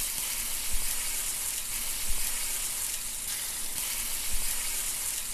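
Steady frying sizzle with a few soft pops, starting and stopping abruptly as a sound bed laid under an outro logo.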